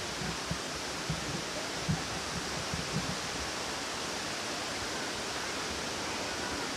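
Steady rushing of falling water from Palaruvi waterfall. A few soft low thumps come in the first few seconds.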